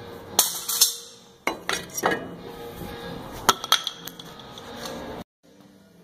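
Metal-on-metal clinks and knocks of large channel-lock pliers working on a cast brake caliper while its pistons are squeezed back in: about eight sharp strikes in uneven clusters. The sound cuts off suddenly near the end, leaving faint background music.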